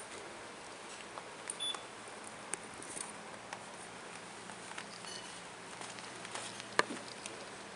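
Kittens playing with a feather wand toy: scattered light taps and rustles over a steady hiss, with a few brief tinkles from the small bell on the wand. A sharper tap stands out near the end.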